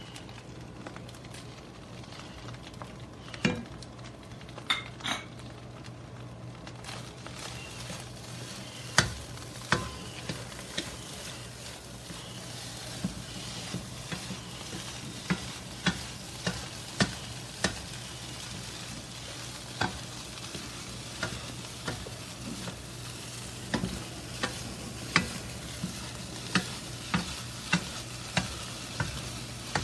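Rice and mushrooms sizzling as they fry in a wok, with a utensil stirring and knocking against the pan about once a second. The sizzle grows fuller about seven seconds in.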